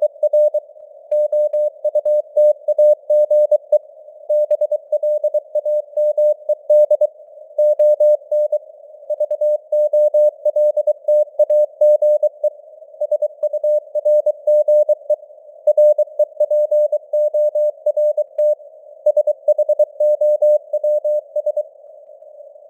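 Morse code (CW) at 23 words per minute: a single tone of about 600 Hz keyed on and off in dots and dashes, over a narrow band of simulated radio hiss. Near the end the keying pauses and only the hiss is left for about a second.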